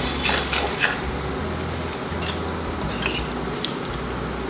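A spoon clinking a few times against a cooking pot of curry, over a steady hiss from the pot.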